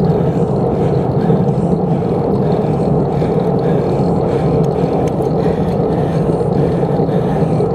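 Steady rushing noise from riding a bicycle: wind buffeting the microphone along with tyre and road noise, even and unbroken.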